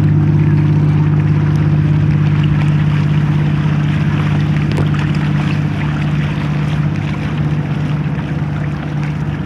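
A Hobie Adventure Island sailing kayak under way: a steady low hum with water and wind noise rushing around the hull, holding even throughout.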